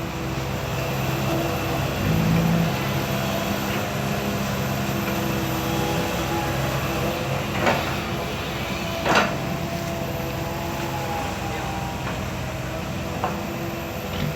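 Komatsu PC160LC hydraulic excavator's diesel engine running steadily while it works, with two sharp knocks about eight and nine seconds in and a lighter one near the end.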